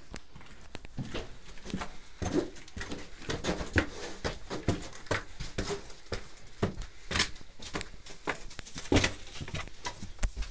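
Irregular footsteps, knocks and scrapes of people moving through a small bunker room and out through a doorway.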